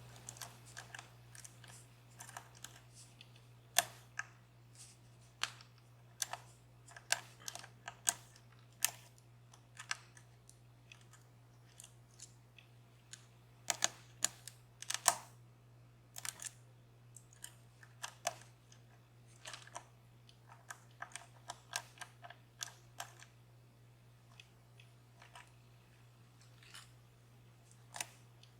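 Lock pick clicking against the pins and keyway of a DOM Plura lock while it is being picked: scattered sharp clicks at irregular intervals, some in quick clusters, over a steady low hum.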